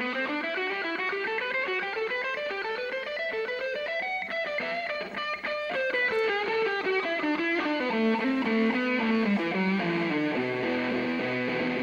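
Electric guitar playing a fast solo run of single notes that climbs for about four seconds, comes back down, and settles into lower notes near the end.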